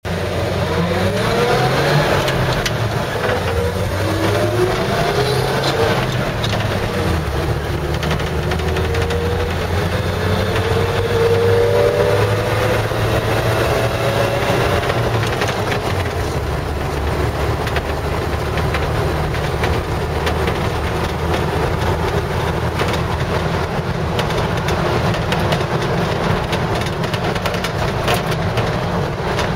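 1955 Chevrolet 3100 pickup truck driving, heard from inside the cab: the engine climbs in pitch several times as it pulls away and picks up speed in the first half, then runs more steadily at a low road speed, with road noise throughout.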